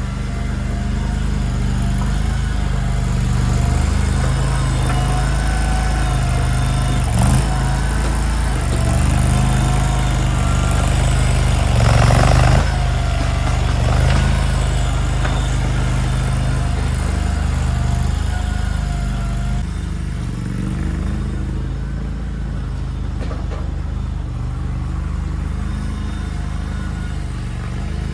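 Mini skid steer's small engine running under load, with a whine that wavers in pitch while the machine works. There is a short knock about seven seconds in and a loud burst of noise around twelve seconds. After about twenty seconds the running settles lower and steadier.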